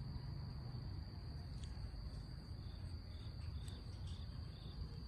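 Faint, steady high-pitched insect trill, with a few short chirps in the middle over a low background rumble.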